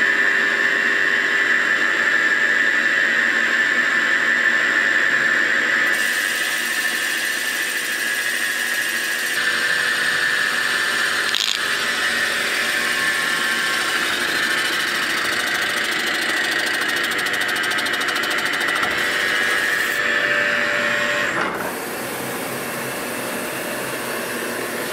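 CNC mill's boring bar cutting the cylinder bores of an aluminum Lotus 910 engine block, a steady high squeal from the cut during preliminary boring for oversize liners. Near the end the squeal stops, leaving a quieter steady machine noise.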